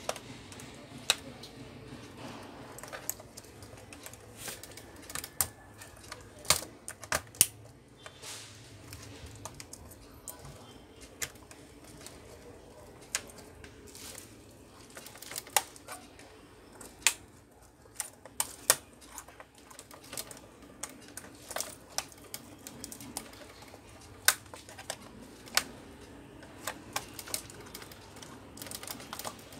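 Irregular sharp plastic clicks and taps from a thin metal pry tool working along the keyboard edge of a Toshiba Satellite C660 laptop, scattered at uneven intervals.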